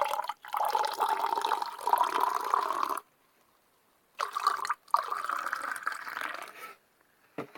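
Water running or being poured, in two stretches of about three seconds and two and a half seconds, with a short break between.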